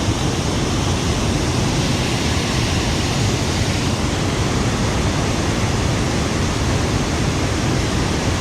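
Loud, steady rush of a river in flood pouring over a waterfall, a dense roar of water with no break.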